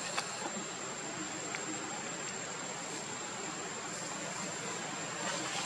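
Steady outdoor background hiss with a thin, constant high-pitched tone and a few faint clicks.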